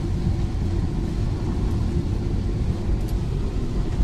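Steady low rumble of a Tata Altroz driving on a wet highway in heavy rain, heard from inside the cabin: tyre and road noise mixed with rain.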